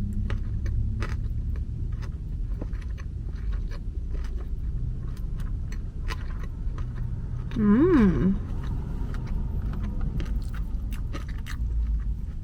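Close-up chewing of a mouthful of pork cutlet kimbap, with many small mouth clicks throughout. About eight seconds in, a short "mmm" hum glides up and down. A steady low rumble of background noise runs underneath.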